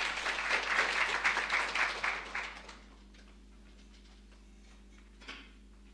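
Audience applauding, the clapping dying away about three seconds in.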